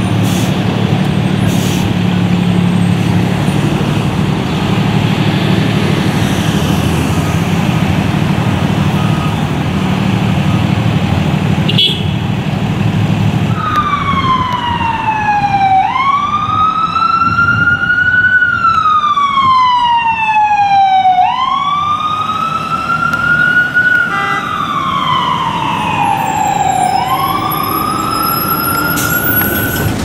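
Heavy vehicle engine and road noise, then from about halfway an emergency vehicle's siren in a slow wail, its pitch sliding down and back up about every five seconds.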